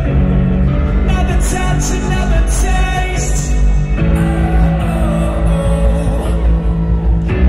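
Live rock band playing loud through an arena PA, with drums and bass under sustained chords and a sung vocal line; the chords change about four seconds in and again near the end.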